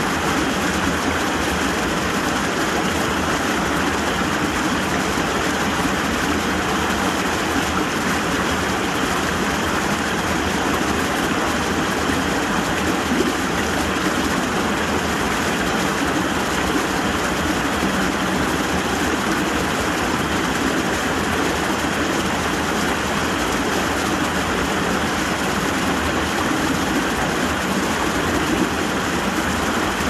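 Creek water pouring over a small rocky cascade, a steady rushing.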